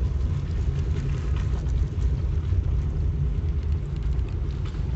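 Car driving slowly, its engine and tyres giving a steady low rumble heard from inside the cabin.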